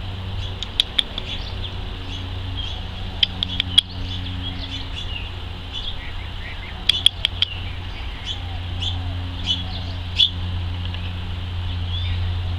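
Small birds chirping in short, sharp calls scattered through, over a steady low hum.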